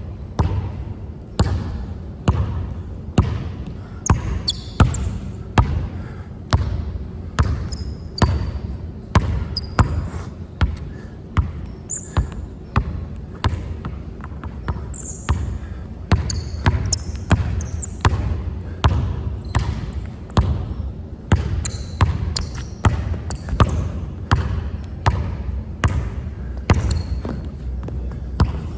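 A basketball dribbled hard and repeatedly on a court, about two bounces a second in a steady rhythm, with short high squeaks in between.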